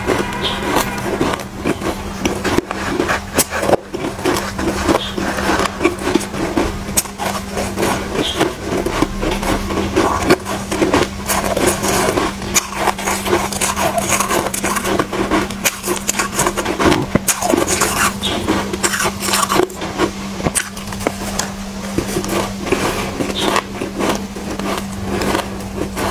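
Close-up crunching and chewing of soft shaved ice, with a spoon scraping and scooping through the ice. A steady low hum runs underneath.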